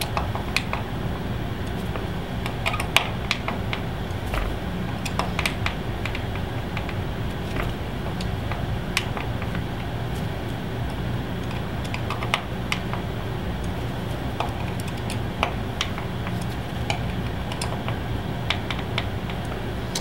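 Light, irregular clicks and ticks of a small hand driver turning and seating the wheel-cover screws of a plastic VMX 450 RC dirt bike rear wheel as they are tightened by hand, over a steady low hum.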